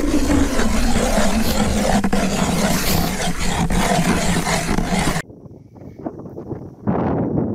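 Hand ice auger grinding through lake ice: a steady rough scraping with a low drone that sinks slightly in pitch. It cuts off abruptly about five seconds in, followed by a quieter stretch and then a crackling rustle near the end.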